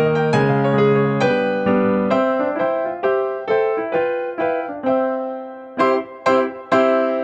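Background piano music: a gentle melody of single struck notes over chords, each note ringing and fading.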